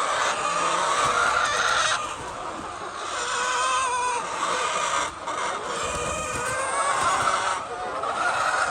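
A flock of chickens clucking and calling, many birds at once in overlapping short wavering calls.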